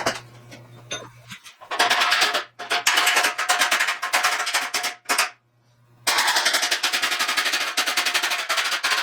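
Rapid, even metallic hammering from a power tool working the dented steel bumper, about ten blows a second, in three bursts of a few seconds with short pauses between them.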